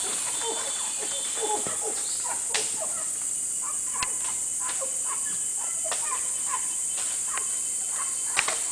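Mantled howler monkeys giving short, repeated calls, several falling in pitch, thick in the first two seconds and scattered after, over a steady high hiss of insects. A few sharp clicks cut through, the loudest near the end.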